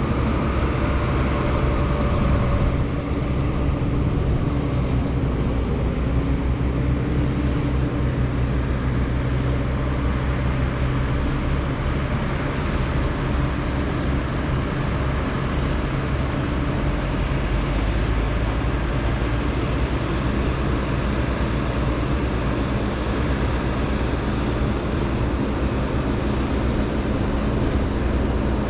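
Heavy diesel farm machinery running steadily: a low engine drone with a constant noisy rush over it.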